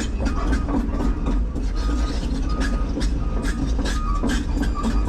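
Volvo 300EL excavator travelling, its diesel engine running steadily while the steel tracks clank and rattle irregularly.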